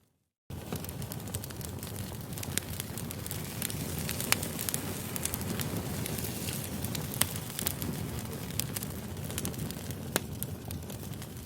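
Campfire crackling: a steady rush of burning with sharp pops and snaps scattered through it, starting suddenly about half a second in.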